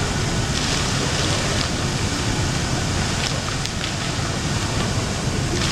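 Steady rush and splashing of an indoor fountain's arcing water jets coming down on a flat, wet stone basin, with a few small splashes standing out.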